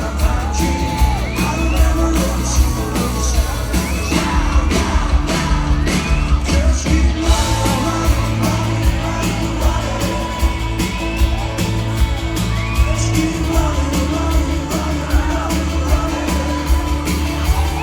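A live rock band playing loudly in a large hall, with singing and the crowd yelling and whooping.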